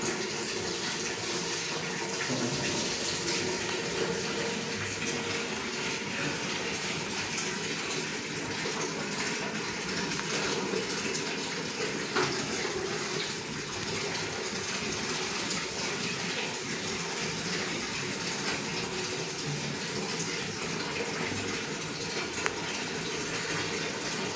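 Steady rush of running water, like a tap filling a tub or basin, with no clear breaks.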